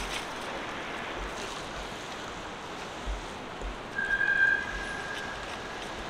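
Steady roar of downtown street traffic, with low thumps about every half second from the walker's steps. About four seconds in, a high squeal rises above it for nearly two seconds.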